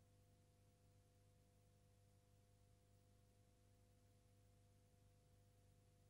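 Near silence: room tone with a faint steady hum.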